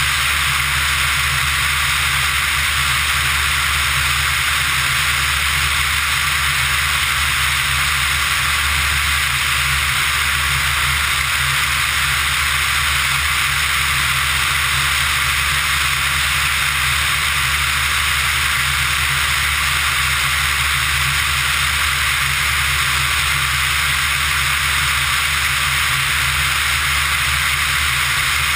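Steady rush of wind over an externally mounted GoPro in flight, with the low, even drone of the Pipistrel Virus ultralight's Rotax 912 engine and propeller beneath it, unchanging throughout.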